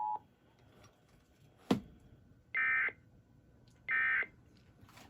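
The EAS two-tone attention signal cuts off at the start, a sharp click follows, then two short bursts of EAS SAME digital data screech about a second and a third apart: the repeated end-of-message code that closes an EAS test.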